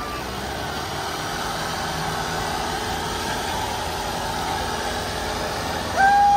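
John Deere 5310 and Mahindra Arjun 605 diesel tractor engines running steadily under load as they pull against each other in a tug-of-war, heard as an even, noisy din. About six seconds in, a loud voice suddenly cuts in.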